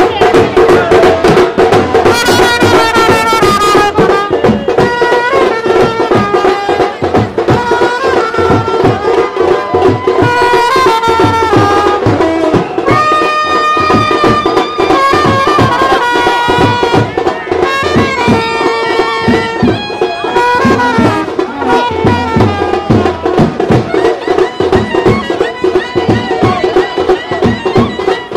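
Indian wedding brass band playing a lively melody over a steady drone, with drums beating a fast, regular rhythm.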